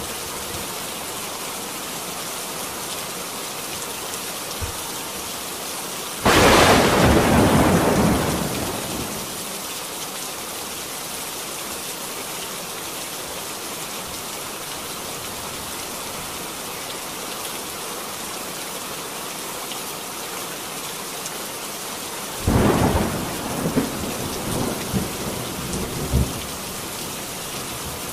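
Thunderstorm sound effect: steady rain, with a sudden clap of thunder about six seconds in that rumbles away over about three seconds. A second clap comes about twenty-two seconds in, followed by a few shorter rumbles.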